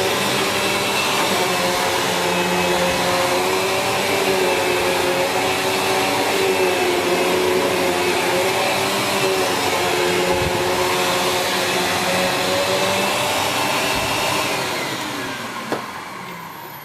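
Sanyo SCA-7AX upright bagged vacuum cleaner running steadily, its motor pitch wavering slightly. About fourteen seconds in it is switched off and the motor winds down, its pitch falling as it fades.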